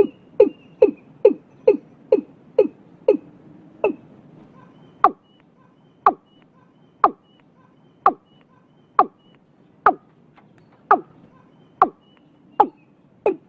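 Watercock calling: a series of short, hollow notes, each falling in pitch, about two a second at first and then slowing to about one a second after some four seconds.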